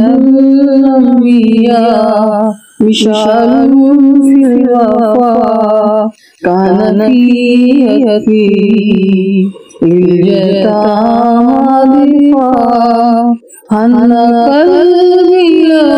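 A voice singing an Arabic devotional nasheed in long, held, ornamented phrases with short breaks between lines.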